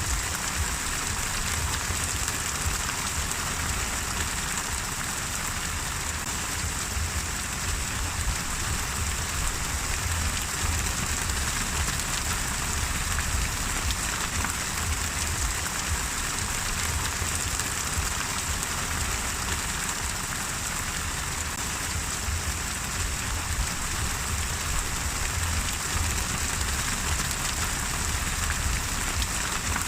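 Steady rain falling and pattering on a surface, an even hiss with many small drop impacts and a low rumble underneath.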